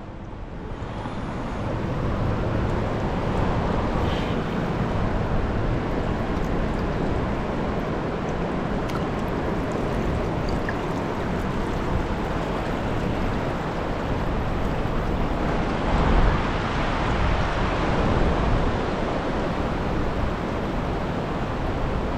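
Steady rush of flowing river water, an even noise that holds level throughout and swells briefly about two-thirds of the way in.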